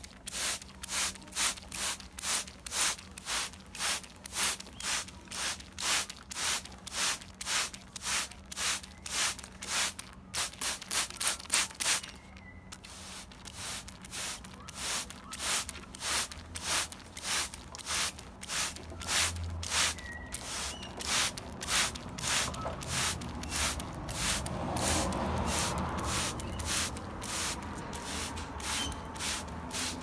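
Hand-held trigger spray bottle misting water over a parrot, pumped over and over at about two sprays a second, each a short hiss.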